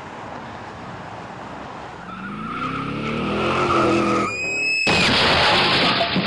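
Car crash sound effect: a car engine revving up in rising pitch, a short high tyre screech about four seconds in, then a loud crash with scattered clattering lasting about two seconds.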